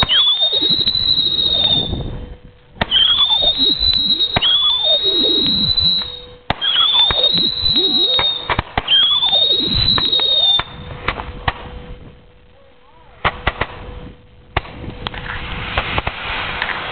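Whistling fireworks going off one after another, about six shrill whistles in ten seconds, each rising and then sweeping down in pitch. Near the end come a few sharp pops and crackles.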